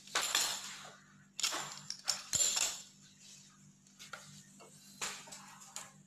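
Kitchen handling noises as a rolled-out sheet of dough is lifted off a floured board: a few short bursts of rustling and clattering, with a faint steady hum underneath.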